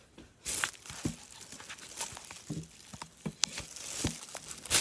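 Foam packing peanuts and a cardboard box being handled: irregular rustling with many small clicks and a few soft knocks.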